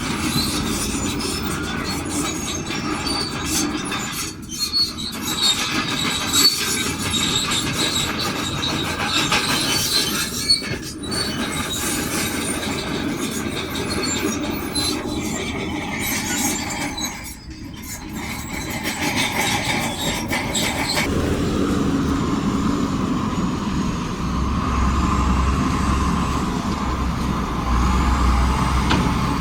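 Crawler bulldozer working stone: steel tracks squealing and clanking, with rock grinding and clattering under the blade and the diesel engine running. About two-thirds of the way through, the squeal and clatter stop and a steadier engine sound with a low hum takes over.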